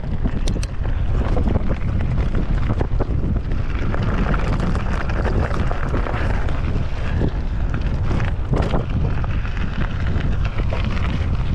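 Wind buffeting the microphone of a camera on a moving mountain bike, over the rumble of tyres rolling on a dirt trail, with scattered clicks and rattles from the bike.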